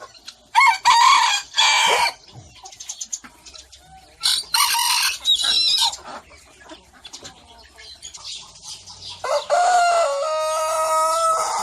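Roosters crowing: three loud crows, the last one longer with a held, steady pitch.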